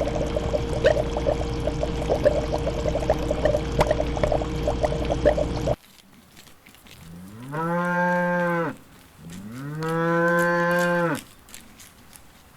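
A steady scraping, crackling noise that cuts off suddenly about six seconds in. Then cattle moo twice, two long calls that each rise, hold steady and fall away.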